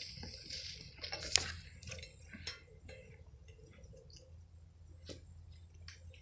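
Rustling and light crackling of footsteps through dry grass, with a sharp snap about a second in, then scattered small ticks and crackles as the rustling dies down.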